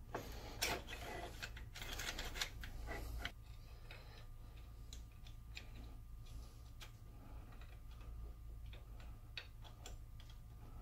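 Light metal clicks and clinks from small parts being handled and fitted on a Sheldon lathe's cross slide during reassembly: a dense cluster in the first three seconds, then scattered single ticks.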